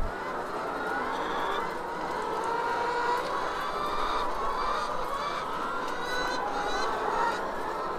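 A flock of caged brown laying hens clucking and cackling, many birds calling over one another in a steady chatter.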